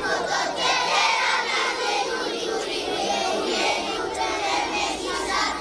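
A large group of young children singing together.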